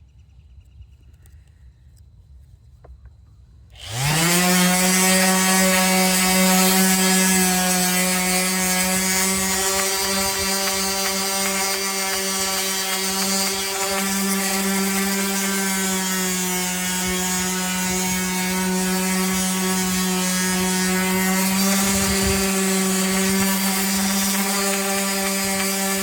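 An electric woodworking power tool switched on about four seconds in. Its motor spins up quickly to a steady whine with strong overtones and keeps running.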